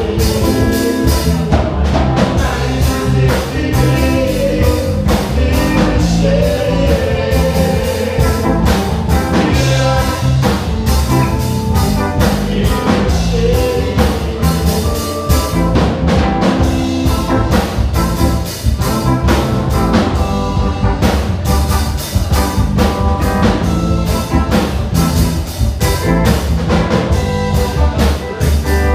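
Live band playing a song: electric guitar, drum kit and keyboard with a singer on the microphone, amplified through PA speakers, with a steady beat throughout.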